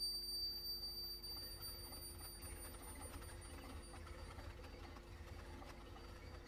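Quiet passage of contemporary music for ensemble and live electronics. A very high, steady electronic tone fades away over the first few seconds, over a few low held tones and a faint low rumble.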